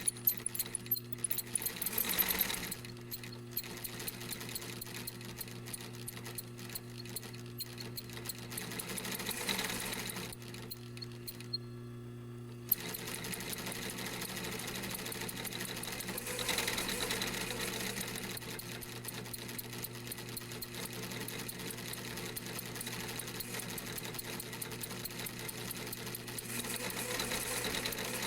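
Industrial sewing machine stitching: rapid needle clatter over the steady hum of its motor. The stitching stops for about two seconds a little over a third of the way through while the motor keeps humming, then starts again.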